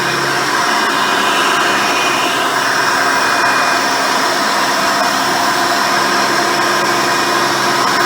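Hoover Elite upright vacuum cleaner running steadily while vacuuming, its original 7-amp motor and 7-blade fan giving a steady whine over a dense rushing hiss, the pitch of the whine shifting slightly a few seconds in.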